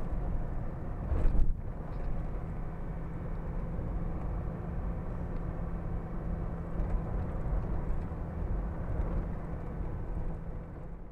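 A steady low engine rumble with an even hum, as from a running vehicle, with a brief louder knock about a second in.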